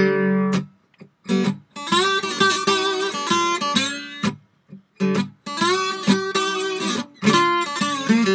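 Acoustic guitar playing a Delta blues intro, in short phrases broken by brief pauses.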